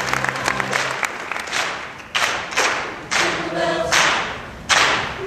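Applause fading out as a choir begins an a cappella number: a low held note, then a string of sharp hissing syllables about half a second apart, with a few sung notes in between.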